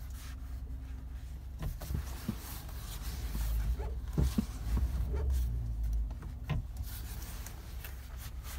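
Handling noise from a handheld phone: rubbing and scraping with a few soft knocks, over a low steady rumble inside a vehicle's cab. The low rumble swells louder from about three to six seconds in.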